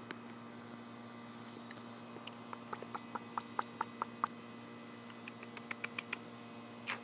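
Blue and gold macaw making a run of short, quick beak clicks, about four a second, starting a couple of seconds in, followed by fainter clicks.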